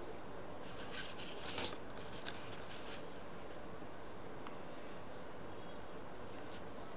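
Plastic set squares and ruler sliding and knocking on a drawing sheet in a short run of scratchy rustles from about half a second to two and a half seconds in. Behind them is a steady background hiss, with short high chirps recurring every second or so.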